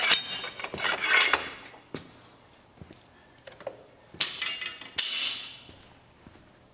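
Bent 6061 aluminium tube being pulled out of a manual tube bender's die: metal scraping and clinking with a brief ringing, once at the start and again about four seconds in.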